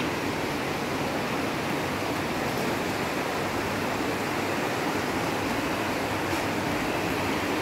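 Steady rush of a shallow river running over rocky rapids.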